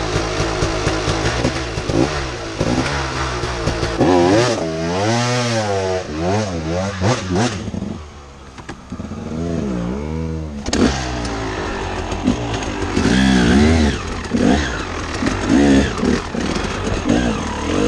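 Enduro dirt bike engine revving up and down in short throttle blips, with a brief drop to a quieter idle about eight seconds in.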